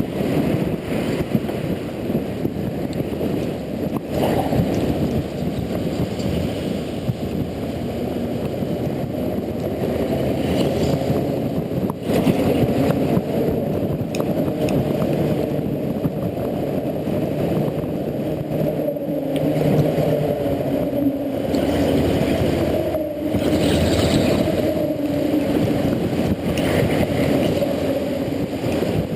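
Honda Integra NC750D's parallel-twin engine running under way, under a steady rush of wind over the microphone; its engine note rises and falls through the middle as the bike speeds up and slows.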